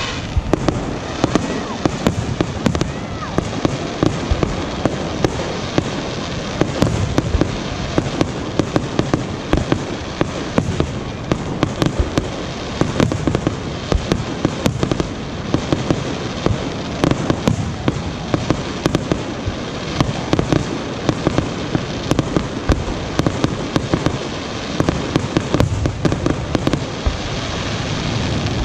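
Aerial fireworks display: shell bursts going off in quick succession, a dense, continuous run of bangs and pops that doesn't let up.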